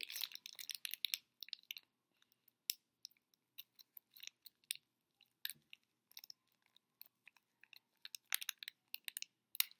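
Thin plastic blind-bag packaging of a Shopkins toy being crinkled and torn open by hand, a string of irregular sharp crackles and rustles.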